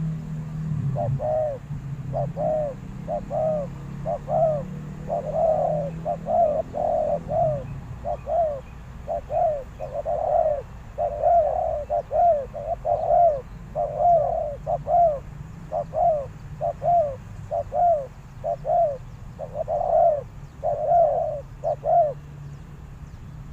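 Spotted dove cooing over and over in short repeated phrases, the calls of a decoy dove meant to draw wild doves in; the cooing stops shortly before the end.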